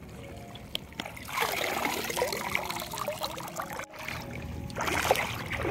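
Shallow seawater trickling and splashing, starting about a second and a half in, with a brief dropout in the middle.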